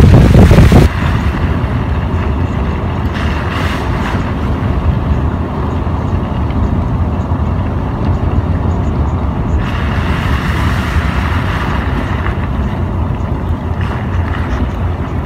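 Car driving, with steady road and engine noise heard from inside the cabin and a loud low rumble in the first second.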